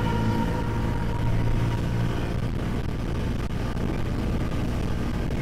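Motorcycle engine running steadily at cruising speed, with a constant rush of wind and road noise.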